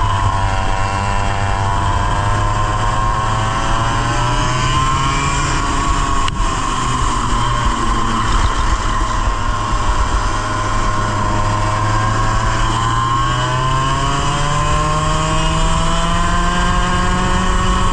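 A 100cc racing kart engine heard from onboard, dropping in revs and then climbing slowly and steadily over several seconds, twice. It is the sluggish pull out of corners that the driver puts down to a damaged chassis. A single sharp knock is heard about six seconds in.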